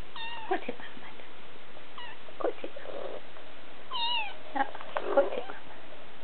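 Three-week-old Siberian kittens mewing: three short, high-pitched mews about two seconds apart, each bending down in pitch. A few light clicks and knocks come between them, the sharpest about five seconds in.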